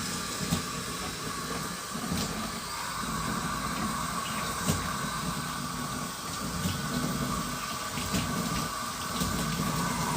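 Running water hissing steadily while a kitten is bathed, with a few light knocks.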